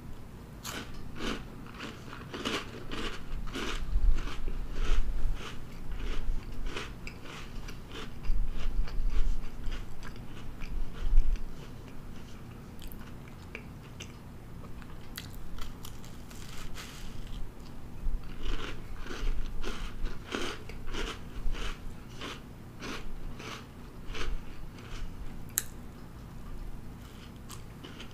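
A woman biting into and chewing a Pillsbury Cinnamon Toast Crunch cookie. The chewing comes in runs of sharp, crisp clicks, busy in the first ten seconds, quieter for a few seconds, then busy again.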